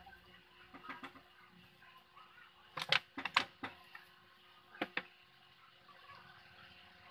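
Wooden pieces knocking and clacking together as a thin wooden strip and boards are handled: a few light knocks about a second in, a quick cluster of sharp clacks around three seconds in, and two more near five seconds.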